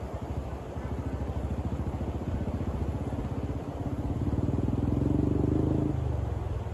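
A motor vehicle's engine running with a steady, even pulse, growing louder to a peak about five seconds in and then dropping away, as a vehicle passing or pulling away would.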